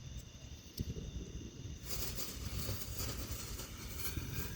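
A lit firework fuse catching about two seconds in and hissing steadily, over a low rumble, after a sharp click about a second in.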